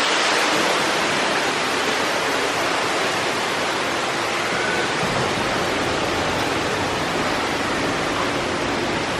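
Steady rush of falling water, a loud, even roar with no breaks.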